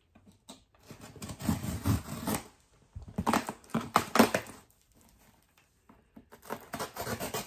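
Packing tape being cut and torn off a cardboard shipping box: irregular scratching and ripping, with a short lull about five seconds in.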